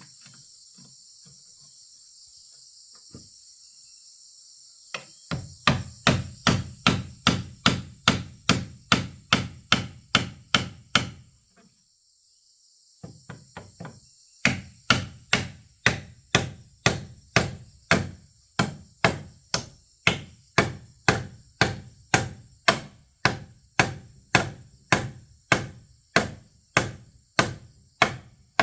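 Hammer blows on wood in a steady rhythm of about three strikes a second, in two long runs with a short break and a few lighter taps between them. Insects buzz steadily in the background.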